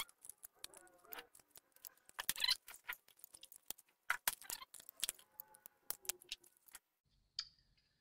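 Irregular light clicks and rattles of a laptop motherboard and its plastic chassis being handled as the board is lifted out and set down, stopping about seven seconds in.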